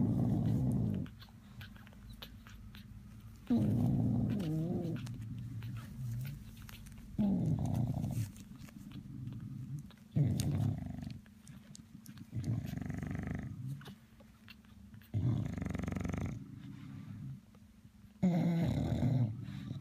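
Bulldog mother snoring, a low rattling snore on each breath about every three seconds. Faint clicks between the snores fit newborn puppies suckling.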